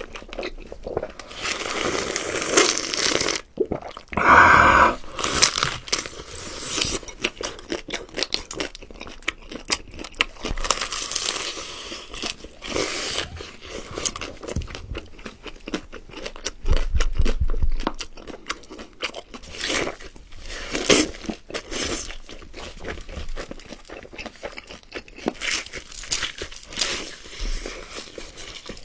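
A person eating close to the microphone: loud, irregular crunching and chewing of crisp food, full of crackles, with bursts of harder crunching every few seconds.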